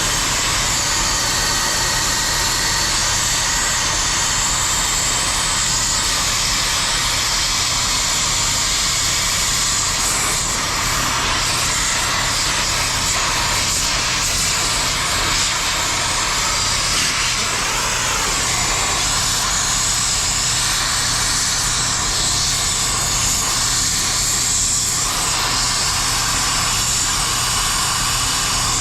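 Steady loud machinery running, an even rushing drone over a low hum, with no break or change.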